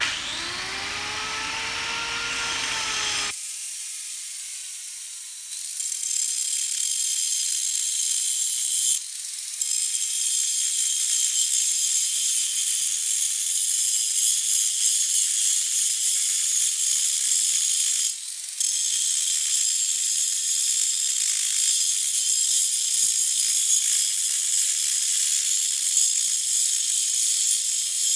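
A grinder spins up, then grinds into the steel of a hydraulic cylinder with a steady, high-pitched hiss, chasing out a crack in the weld before it is rewelded. The grinder briefly comes off the work twice and picks up speed again.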